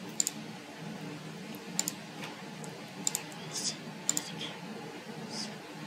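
Computer mouse and keyboard clicks: scattered sharp clicks, several in quick pairs, over a steady low background noise.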